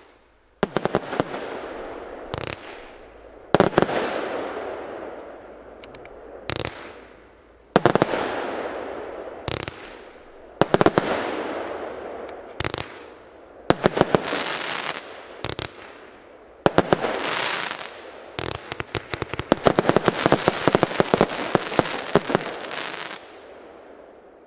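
J-Fireworks Nordic Punisher, a 70-shot 20 mm fan cake, firing: volleys of sharp shots every second or two, each trailed by a long fading rush of noise, building to a rapid-fire finale of dense shots that stops about a second and a half before the end and fades away.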